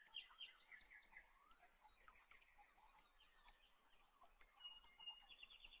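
Faint birdsong: many short chirps and whistled notes, with a quick trill near the end.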